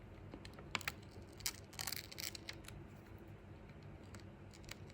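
Faint, scattered small clicks and plastic rustles as fingers handle and reposition a thin adhesive waterproof gasket film on an iPhone 6S frame.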